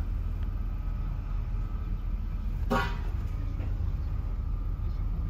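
Steady low engine rumble heard from inside a pickup's cab, with one short sharp sound about two and a half seconds in.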